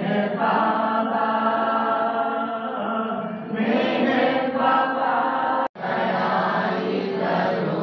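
A group of devotees singing a devotional hymn together in long, held notes. The sound cuts out for an instant about two-thirds of the way through, then the singing resumes.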